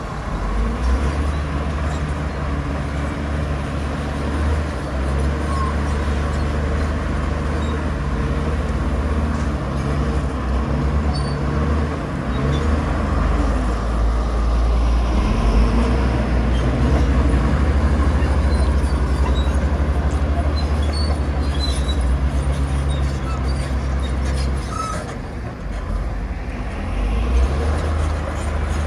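Komatsu bulldozer's diesel engine running heavily. It grows louder through the middle and eases briefly near the end.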